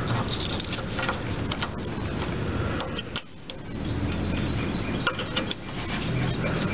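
Hands fitting a plastic brake/clutch pedal safety switch onto its metal bracket under a lawn tractor: rubbing and scraping with scattered small clicks, and a brief lull about three seconds in.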